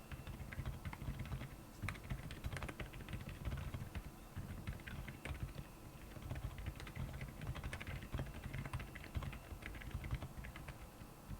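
Typing on a Royal Kludge R75 mechanical keyboard fitted with Akko silent Penguin tactile switches: a continuous, uneven run of keystrokes, several a second.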